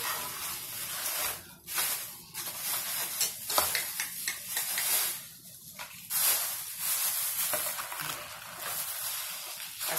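Rustling and crinkling of a takeout food bag being handled and rummaged through, in stop-and-start stretches with brief pauses.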